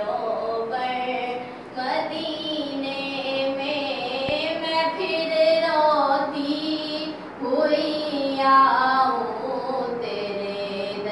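A naat, an Islamic devotional song, sung by a high female voice in long, gliding, ornamented notes, with two short breaks between phrases.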